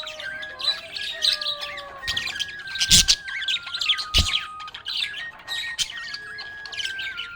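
Budgerigars chirping and squawking in quick, busy bursts, with a simple melody of held notes stepping up and down in the background. Two sharp knocks come about three and four seconds in.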